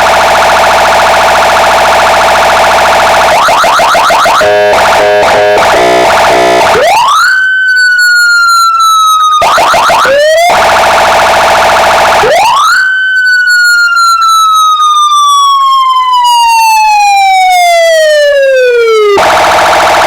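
Car-mounted electronic siren and horn kit cycling through its tones. It opens on a steady horn tone, then switches to a fast warbling yelp about three seconds in. Next come two wails that rise quickly and fall slowly, the second a long wind-down lasting about seven seconds, before the steady horn tone returns near the end.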